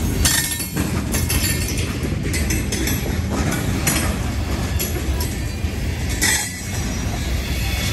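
Freight train gondola cars rolling past close by: a steady rumble of steel wheels on rail, with repeated clanks and clicks as the wheels cross rail joints.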